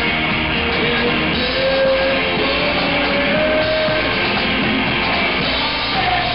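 Live rock band playing loudly: drum kit, electric guitars and keyboard, with some long held notes over the beat.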